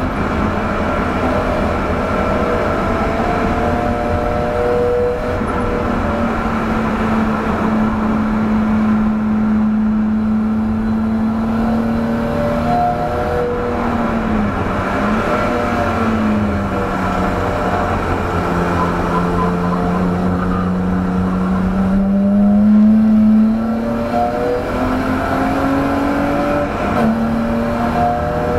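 1989 BMW 325i's 2.5-litre straight-six engine at speed on a race track, heard from inside the stripped, caged cabin. The note rises and falls with throttle and gears: held fairly steady, dipping about halfway through, then climbing again near the end.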